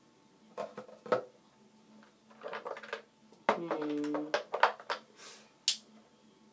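Small glass nail polish bottles clinking and knocking against each other as they are rummaged through, in a scattered series of sharp clicks. There is a brief low hum about halfway through.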